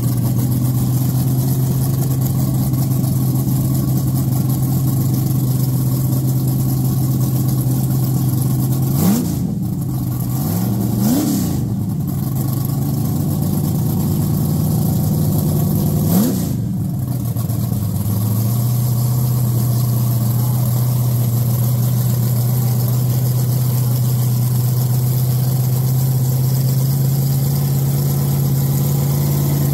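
Drag car's V8 engine idling steadily, with three short throttle blips about 9, 11 and 16 seconds in. The idle settles slightly lower after the last one.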